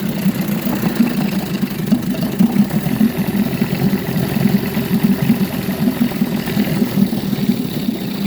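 1953 Scott-Atwater Gold Pennant 7½ hp two-stroke outboard motor idling steadily with a rapid, even beat. It runs without the lean sneeze, which was cured by a new top crankshaft seal and a replacement cylinder head.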